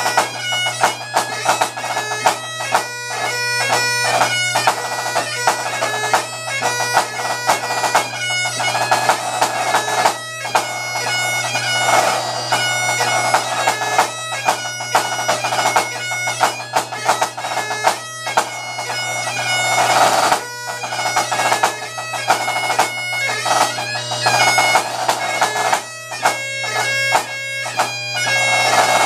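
Pipe band snare drum played in a solo over Great Highland bagpipe accompaniment: the pipes' steady drone and chanter tune run throughout, while the snare plays fast strokes, rolls and rudiment flourishes in close clusters.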